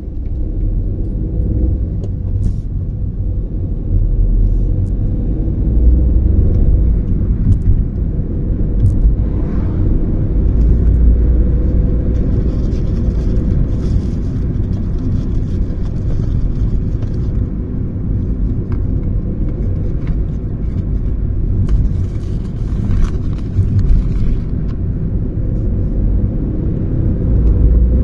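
Car driving along an asphalt road, heard from inside the cabin: a steady low rumble of tyres and engine.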